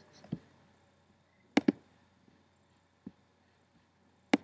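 Computer mouse clicking against quiet room tone: two sharp clicks in quick succession about one and a half seconds in, a single click near the end, and a couple of fainter ticks.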